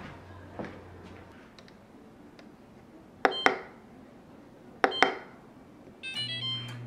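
Buttons on a household appliance's electronic control panel pressed in two quick pairs, each press giving a sharp click and a short beep. Near the end a short run of electronic beep tones plays as the appliance's low, steady hum starts up.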